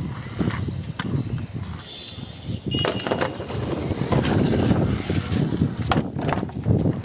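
Toy car's plastic wheels rolling and scraping over a rough surface as it is pushed by hand, with a few sharp clicks and knocks.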